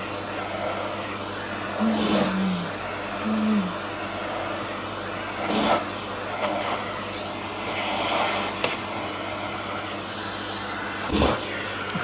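Vacuum cleaner running on its weakest setting, its hose nozzle sucking at a cat's fur to pick up loose hair; the suction noise swells briefly a few times.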